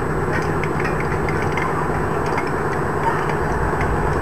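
Scattered short metallic clinks of tools and steel on an M113 armoured personnel carrier's track, over a steady low rumble and faint shouting.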